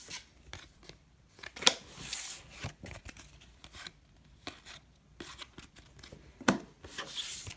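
Baseball cards being handled and sorted in the hands: cardboard sliding and rustling against card, with scattered light taps, the sharpest about two seconds in.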